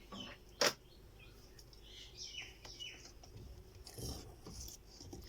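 A sharp click less than a second in, with a fainter one just before it, then faint bird chirps.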